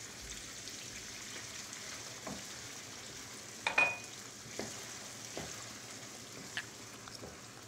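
Rice and diced vegetables sizzling in a frying pan as boiling water is poured in and stirred through with a wooden spatula, which knocks against the pan a few times, loudest near the middle with a short clink.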